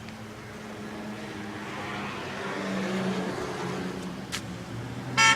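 Car engine running with a steady low hum that swells a little around the middle, then a short car horn toot right at the end.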